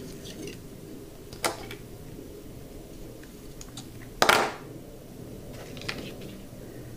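Quiet handling noise of small parts on a workbench: a few light clicks and taps, with one louder short knock about four seconds in.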